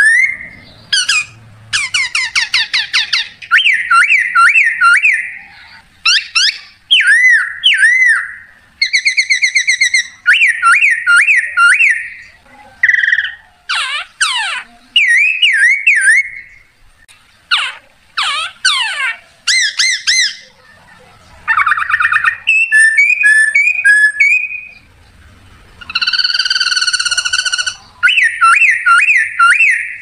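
Leaf whistle imitating birdsong: a leaf held between the lips blown into a string of loud, high whistled phrases of fast trills, swooping up-and-down glides and quick repeated chirps, with short pauses between phrases.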